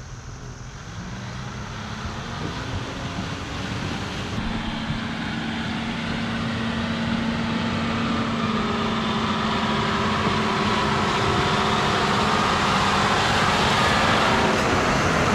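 John Deere tractor's diesel engine running steadily as it pulls a manure tanker toward the listener, getting gradually louder as it draws close.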